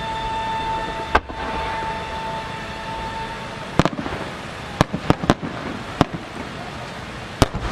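Large Japanese aerial firework shells bursting: a single sharp bang about a second in, then a string of bangs from about four seconds on, the last near the end. A steady high tone runs under the first part and stops about three and a half seconds in.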